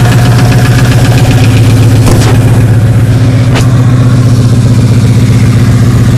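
2004 Ford F-350's straight-piped 6.0 Power Stroke V8 turbodiesel idling, loud and steady with an even rapid pulse from the open exhaust, still cold after a start in about 8°F weather.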